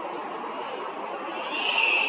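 Forest ambience: a steady hiss, with a high, drawn-out call starting near the end.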